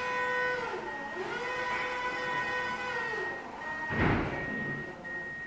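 Electric motor of a Rocla reach truck's hydraulic pump whining as the mast lifts. The pitch dips and recovers about a second in and sags again around three seconds. A loud thud follows about four seconds in, with a thin high whine running on after it.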